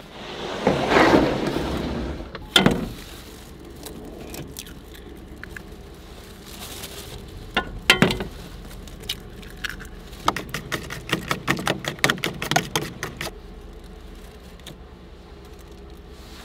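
A wooden storage drawer slides open with a scraping rush and ends in a knock. Then come scattered clatters of kitchen gear, and about ten seconds in a fork taps rapidly against a plastic tub for about three seconds as an egg is beaten.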